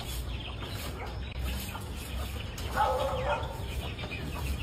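Bird chirps repeating over a steady low hum, with a louder short call about three seconds in.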